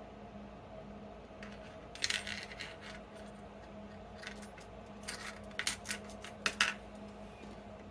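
Small metal lock parts and tools clinking and tapping on a hard surface while a padlock is taken apart: a cluster of clinks about two seconds in, then several more sharp clinks between about five and seven seconds, over a steady low hum.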